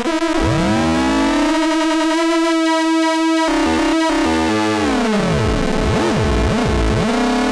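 Moog Mother-32 analog synthesizer playing sustained notes whose tones swoop up and down under LFO modulation, as the LFO rate is turned. A bright, dense chord of tones cuts off abruptly about halfway through, leaving a held note with repeated dipping glides.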